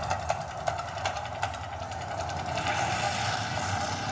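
Man-made volcano attraction erupting: a steady low rumble and rushing fire noise from its flame jets, with scattered sharp crackles. The rushing grows louder about two and a half seconds in.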